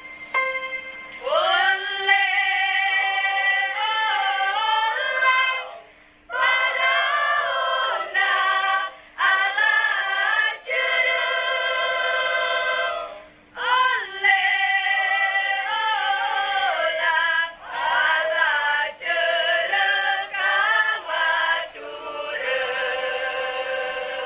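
A school choir singing an ethnic Indonesian choral piece without accompaniment, in sung phrases broken by short pauses where the voices stop together. A faint steady hum runs underneath.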